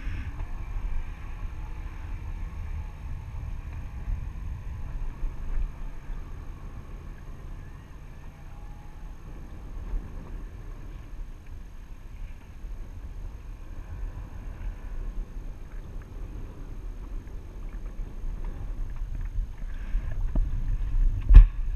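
Jet ski running at speed over chop: wind rumble on the microphone over a faint, steady engine tone. There is one loud thump near the end.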